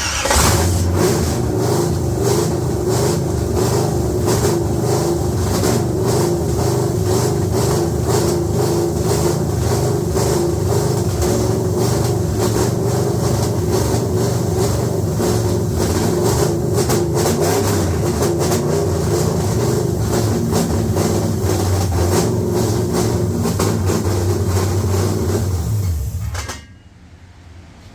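Car engine firing up and running steadily with a rough, pulsing note, then shutting off about 26 seconds in, with a rattle at shutdown that the owner puts down to loose torque converter bolts. The engine still has vacuum leaks and its ignition timing not yet set.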